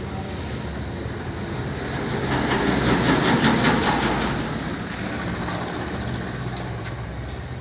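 A vehicle passing by, growing louder to a peak about three seconds in and then fading away.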